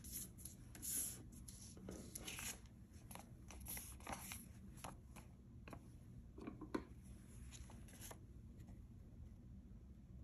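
A sheet of paper being folded, creased and slid across a wooden tabletop by hand: short rustles and swishes with a few light clicks, dying down after about eight seconds.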